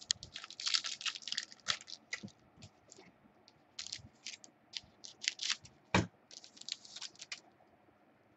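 Quick runs of light clicks and crackles from hands working at a desk, in three flurries: one at the start, one around four to five seconds in, and one about seven seconds in. A single sharper knock comes about six seconds in.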